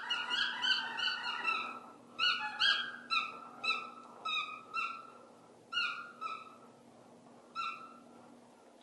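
A dog whining in a run of short, high-pitched yelps, each dipping slightly in pitch, coming in quick succession at first and then spacing out, the last one about two-thirds of the way through.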